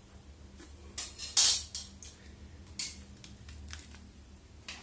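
A few sharp clicks and knocks of hard objects being handled, spaced irregularly, the loudest about one and a half seconds in.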